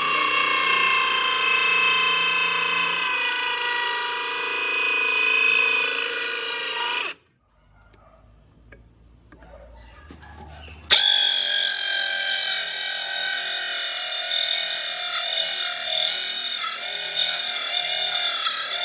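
Power drill driving a hole saw, cutting with a steady high whine. It stops about seven seconds in and starts again with a sudden onset about four seconds later.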